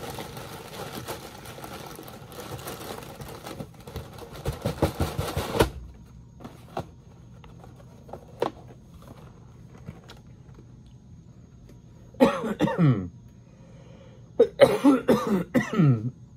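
Rustling of a cereal box's plastic inner bag for about five seconds, stopping abruptly. Later a man coughs hard: a short burst, then a longer fit of several coughs near the end.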